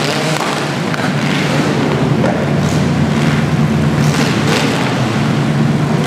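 Several demolition derby compact cars' engines running together, a loud steady low rumble with irregular sharp pops and revs.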